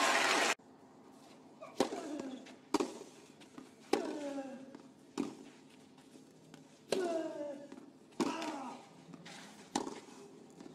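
Tennis rally on a clay court: about seven racket strikes on the ball, one every one to two seconds, most followed by a player's short grunt. Applause cuts off about half a second in.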